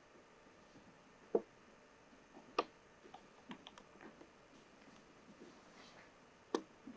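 A few faint, scattered knocks and clicks in a quiet room, three of them sharper than the rest.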